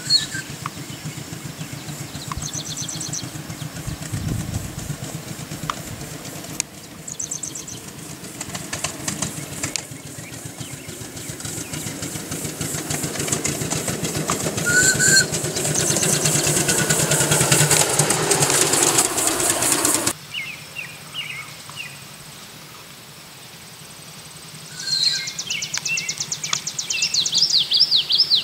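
Ride-on live-steam model of South Side Rapid Transit steam locomotive No. 46 running, its exhaust beating in fast, even chuffs that grow louder as it approaches, with bird chirps over it. The chuffing cuts off suddenly about two-thirds through, leaving quieter outdoor sound with birds chirping and a fast rhythmic sound building again near the end.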